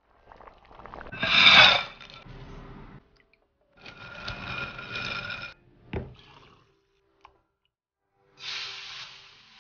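Short separate bursts of cooking and food-handling sounds as noodles and shrimp are worked with chopsticks and a skimmer; the loudest comes about a second and a half in, with a sharp click about six seconds in.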